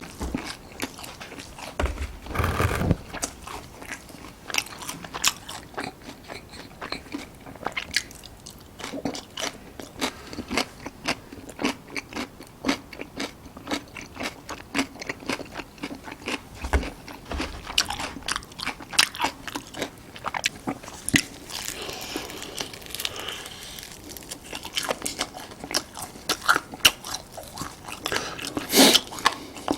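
Close-miked eating: a person biting and chewing crunchy food, a dense run of sharp, irregular crunches, with a louder bite about two and a half seconds in and another near the end.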